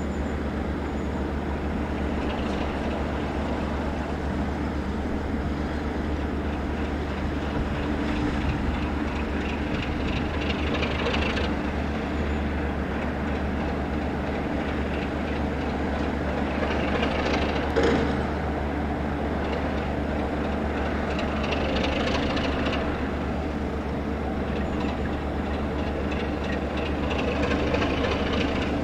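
Class 33 diesel locomotive's Sulzer engine running steadily as the train moves, with a single sharp knock partway through.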